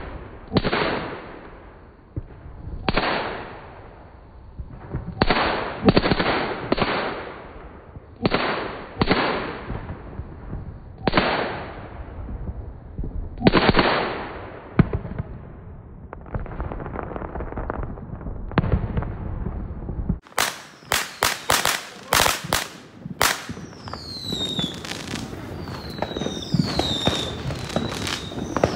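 Firecrackers and fireworks going off on a street: irregular sharp bangs, each with a trailing echo. About 20 seconds in they give way to a quicker run of crackling pops mixed with short, falling whistles.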